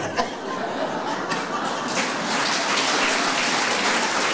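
Theatre audience applauding, a big, dense round of clapping that swells fuller about two seconds in.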